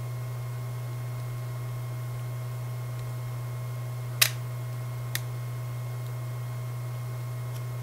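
Steady low electrical hum, with two sharp plastic clicks about four and five seconds in, the first louder, from fingers picking at the clear plastic iPod box to get its wrapping off.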